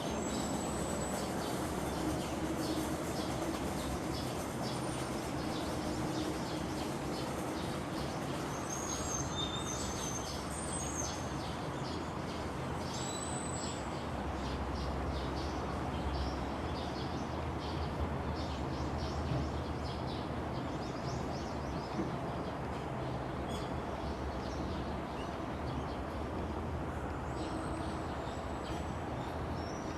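Birds chirping in short, scattered high calls, more of them about ten seconds in and again near the end, over steady background noise.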